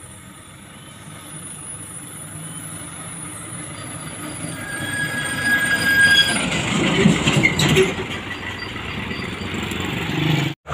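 Hino 300 diesel tanker truck coming down the hill and passing close by, its engine and tyre noise building to a peak about six to seven seconds in, with a high, steady squeal from its brakes as it nears, then easing off as it moves away. The sound cuts out abruptly just before the end.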